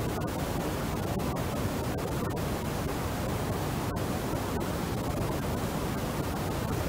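Steady hiss of background recording noise, even and unchanging, with no distinct writing strokes standing out.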